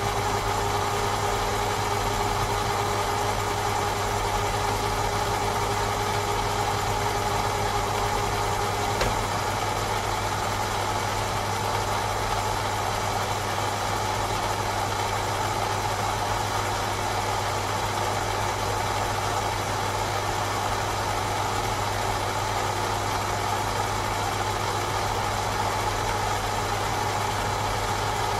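Raglan 5-inch lathe running steadily with a constant motor hum, taking a light cut of about a millimetre. A higher steady tone stops about nine seconds in, with a faint click.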